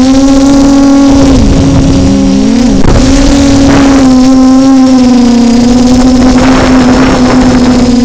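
Quadcopter motors and propellers whining steadily, heard from the onboard camera, the pitch dipping briefly and recovering between about one and three seconds in. Gusts of wind buffet the microphone in rushes throughout.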